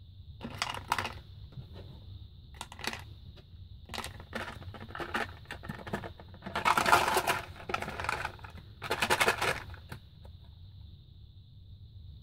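Small bingo counters clicking as they are dropped one by one into a cardboard candy box, then two spells of dense rattling as the closed box is shaken to mix them.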